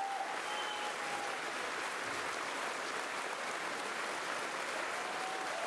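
Large audience applauding steadily, with a brief whistle-like tone or two above the clapping.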